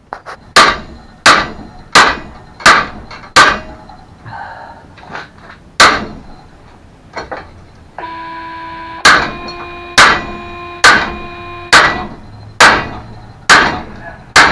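Hammer blows on metal, about one every 0.7 seconds: a run of five, a single blow, then a second run of about seven, pounding at a mobility scooter's rear hinge to drive out a wedged insert. A steady pitched tone sounds for a few seconds during the second run.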